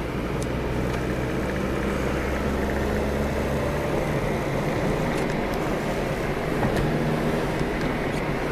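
Car running on the road, heard from inside the cabin: a steady low engine drone over tyre and road noise. The deepest part of the drone eases off about four seconds in.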